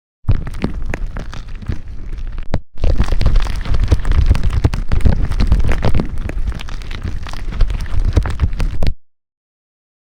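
Slime being squished and worked close to the microphone, giving dense crackling and popping with a heavy low rumble. It runs in two stretches separated by a brief cut and stops abruptly near the end.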